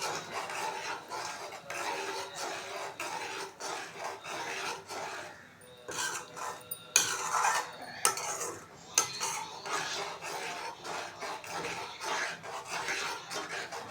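A spoon stirring and scraping around a cooking pan in quick, uneven strokes, with a couple of sharper knocks against the pan about seven and nine seconds in.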